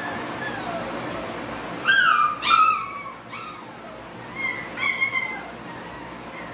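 XL pitbull puppies whining in short cries that fall in pitch. The loudest two come close together about two seconds in, and fainter ones come near five seconds.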